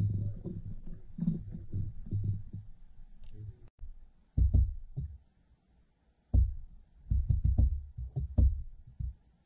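Muffled low thumps and rumbling picked up underwater by a camera's microphone in its housing. They come in irregular bursts, with a couple of short spells of dead silence between them.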